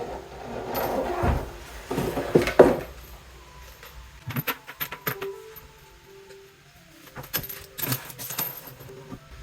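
Irregular clinks and rattles of small faucet fittings being handled and fitted together, in several short clusters.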